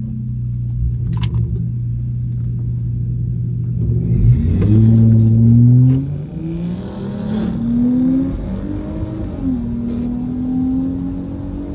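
A Dodge Charger's 3.6L V6 Pentastar idles steadily, then launches at full throttle about four seconds in. Its pitch climbs hard, with sudden drops at the automatic's upshifts, two of them, and it pulls at a steadier, slowly rising pitch near the end.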